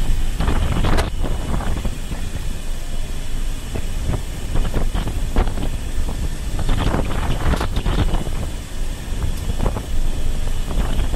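Wind buffeting the microphone of a camera on a moving vehicle, in irregular gusts over a steady low rumble of the ride.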